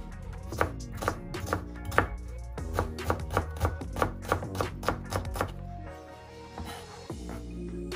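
Chef's knife chopping onion on a plastic cutting board: a quick run of knife knocks, two to three a second, that stops about two thirds of the way through, over background music.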